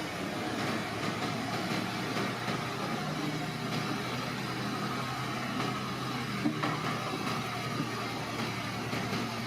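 Bulldozer's diesel engine running steadily, with a rattle of small metallic clanks.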